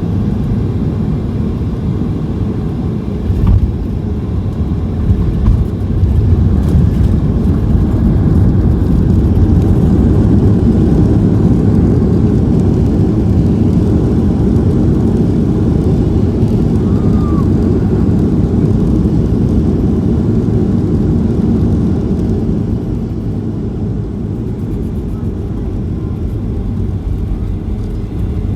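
Boeing 737-800 cabin during landing: two jolts about 3 and 5 seconds in as the wheels touch down. The CFM56 engines' deep rumble then builds into the roar of reverse thrust and braking, and eases off over the last several seconds as the jet slows on the runway.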